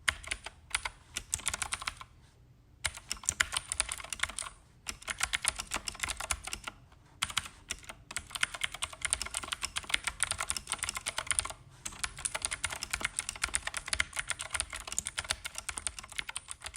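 Typing on a Keychron K8 tenkeyless mechanical keyboard with clicky blue switches: fast runs of sharp key clicks, broken by a few brief pauses.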